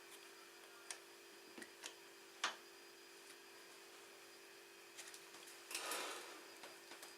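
Scattered light clicks and taps of tools and parts being handled, the loudest about two and a half seconds in, then a brief scrape or rustle near six seconds, over a steady faint hum.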